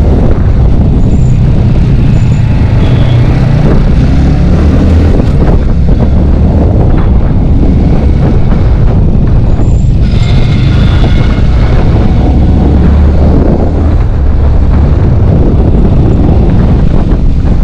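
Yamaha sport motorcycle's engine running steadily as the bike rides along a city road, heard from the rider's seat with loud low road and wind rumble on the microphone.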